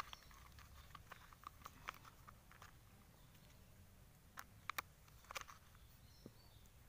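Faint, scattered clicks and light taps of small parts being handled and fitted back during reassembly, with a few sharper clicks about four and a half and five and a half seconds in.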